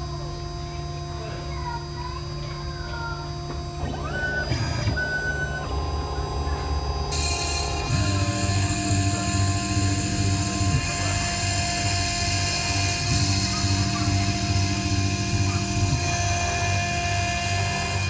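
CNC IC grinding machine's spindle running steadily as it mills away the memory chip on an iPhone 6S logic board, which is being removed for a memory upgrade. About seven seconds in, a louder high grinding hiss sets in, and a low droning follows that shifts every two to three seconds.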